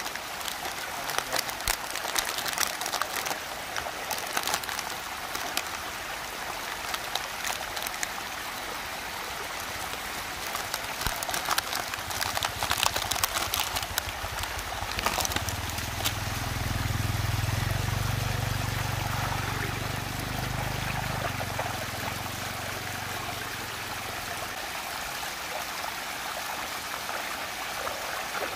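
Water rushing and swirling steadily in a whirlpool vortex. Over the first half there is dense crackling from the plastic toy blister pack being handled and torn open. A low rumble comes in just past the middle for several seconds.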